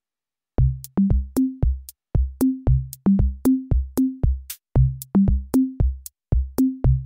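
Electronic music: a drum-machine beat of short pitched low drum hits stepping between three pitches, with crisp high clicks, starting about half a second in.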